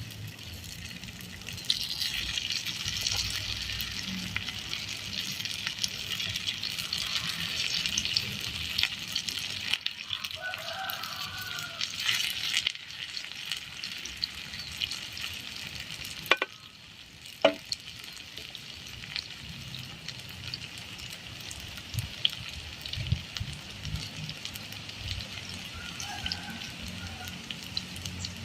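Food frying in hot oil in a pan, a steady crackling sizzle with fine spits and pops. There are two sharp clicks a little past the middle.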